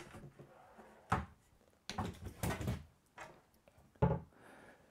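Wooden shaker-style cabinet door on soft-close hinges being opened and shut, with a knock about a second in, a cluster of knocks and rubbing in the middle, and the loudest knock about four seconds in.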